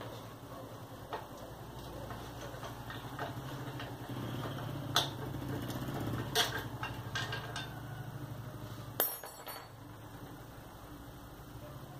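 Hand tools clinking and tapping on the metal of a Sundown MAX 125 motorcycle engine's cylinder head during disassembly: scattered sharp metallic clicks and knocks, the loudest about five, six and nine seconds in. A steady low hum runs underneath and fades after about nine seconds.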